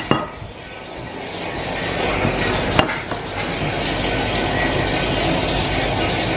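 A cleaver knocks on a plastic cutting board: a light knock at the start and a sharp one about three seconds in, over a steady background rumble.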